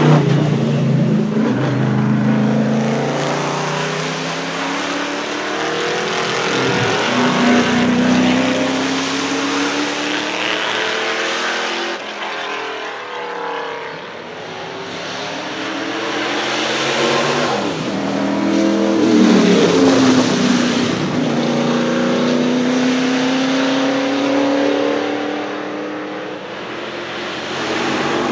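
NASCAR stock-car V8 engine at hard throttle. The pitch climbs in long sweeps and drops sharply a few times as the car accelerates, shifts and passes, loudest around eight and twenty seconds in.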